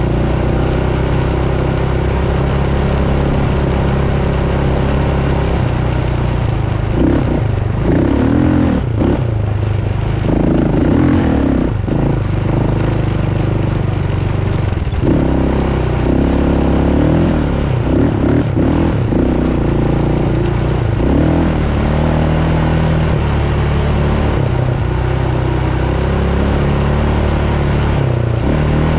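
Off-road vehicle engine running hard across sand, its revs rising and falling repeatedly.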